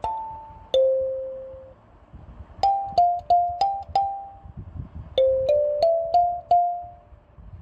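Background music: a slow melody of single notes, each starting sharply and fading, played in three short phrases with brief pauses between them.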